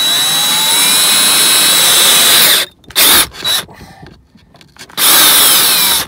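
Power drill running in bursts while drilling a hole through plastic console trim. It runs with a rising whine for about two and a half seconds, then briefly blips twice, and runs once more for about a second near the end before winding down.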